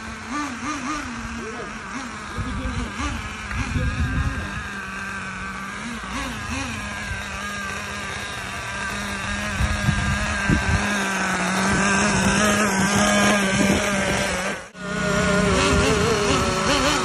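Kyosho 1/10 on-road nitro RC car's glow engine running and revving up and down as the car drives. There is a brief break about three-quarters of the way through.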